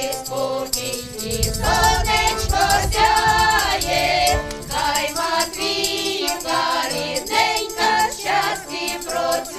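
Women's folk choir singing a Ukrainian folk song together.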